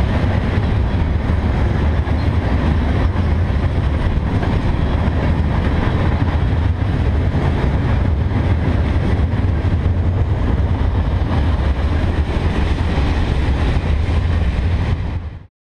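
Loaded freight train's wheels rolling past on the rails as tank cars and gondolas go by, a steady noise heavy in the low end, cutting off just before the end.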